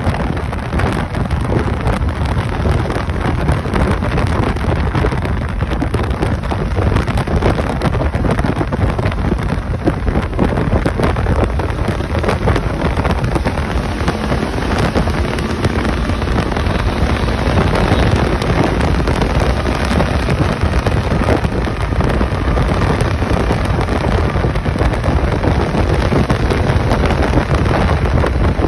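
Wind buffeting the microphone over the steady drone of a motorcycle riding at speed, with tyre and road noise.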